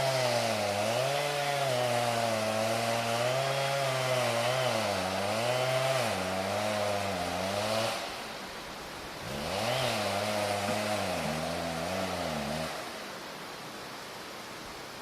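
Two-stroke chainsaw running in a cut, its engine pitch dipping and rising as the chain loads up in the wood. It drops back about eight seconds in, revs up again near ten seconds, and stops cutting about two-thirds of the way through.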